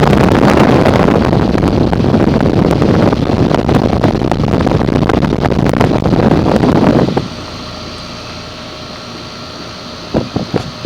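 Trane XL15i heat pump outdoor unit running in cooling. For about seven seconds a loud, wind-like rushing of air from the condenser fan buffets the microphone. It then drops to the quieter, steady hum of the fan and compressor, and the rushing returns near the end.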